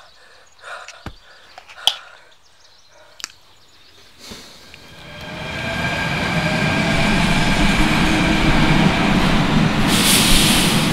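Metro train coming into a station: a rumble that swells about four seconds in and stays loud, with steady whining tones over it and a burst of hiss near the end. A few faint clicks and knocks before it.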